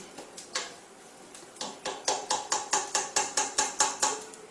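A spoon knocking against the side of a metal cooking pot while onions are stirred: one knock about half a second in, then about a dozen quick, even clinks at about five a second.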